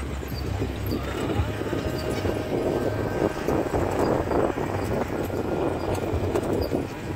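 Mahindra CJ 550 jeep driving over a rough dirt trail: engine running, with the body and fittings rattling and knocking over the bumps.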